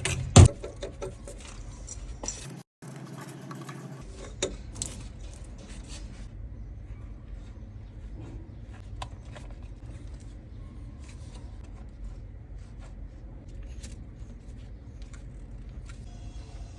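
Handling noises: a loud knock about half a second in, then scattered light clicks and scrapes over a steady low hum.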